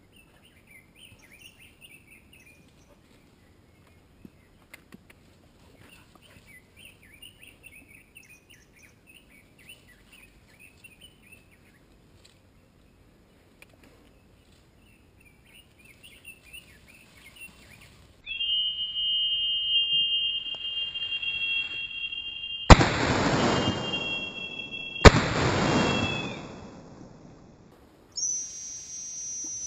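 Two shotgun shots from a double-barrelled shotgun, about two seconds apart near the end, one from each barrel. Before them, birds chirp faintly. A steady high buzz starts a few seconds before the shots and runs under them.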